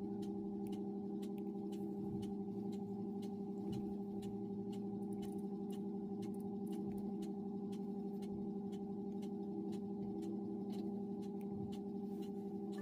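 A steady low hum with an even, fast ticking over it, about three ticks a second.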